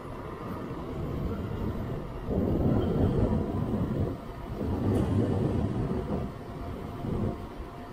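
Ride noise from a Zero 11X electric scooter moving at speed: a steady low noise of wind and tyres on the road, which swells louder twice for a second or two each time.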